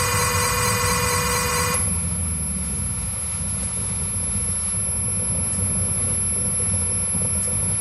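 Live experimental electronic music through a PA: a dense, buzzing chord of sustained tones cuts off suddenly about two seconds in, leaving a low, noisy drone with a thin high whine above it.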